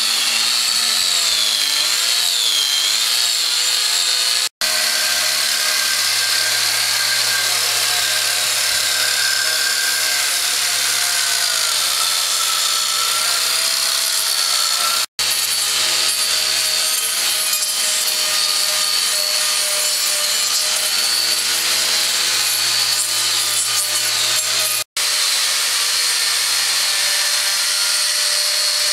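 Angle grinder with an extension-arm carving attachment, its small cutter wheel chewing into a log: a steady high motor whine over the rasp of wood being cut, the pitch dipping and wavering as the cutter is pressed into the wood. The sound breaks off for an instant three times.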